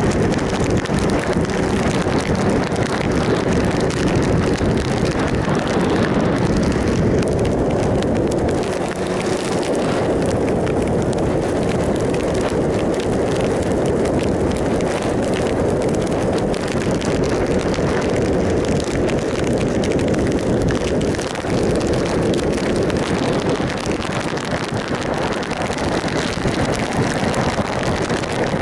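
Triumph Sprint ST 1050 inline three-cylinder engine running steadily at road speed under heavy wind rush over the microphone.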